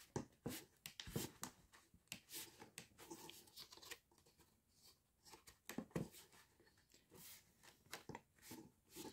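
Faint rustling and scattered clicks of a stiff printed cross-stitch canvas being handled and pressed into the clip bars of a wooden scroll frame, with a couple of sharper knocks about a second in and near six seconds.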